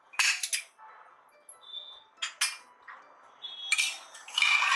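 Metal ladle clanking and scraping against the inside of an aluminium pressure cooker while stirring goat trotters in broth: several separate clinks with a short ring, the loudest run near the end.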